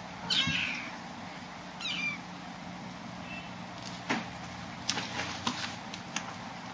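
Young kittens mewing: two short, high mews that fall in pitch, one about half a second in and one about two seconds in. A few light knocks follow about four to five seconds in.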